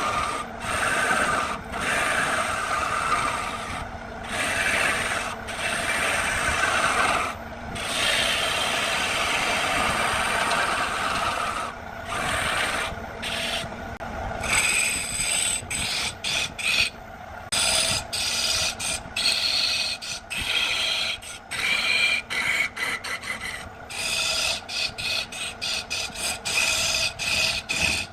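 Wood lathe spinning a cedar blank while a turning tool cuts into it: a scraping, rasping hiss of the cut. It is broken by many short gaps, which come more often in the second half.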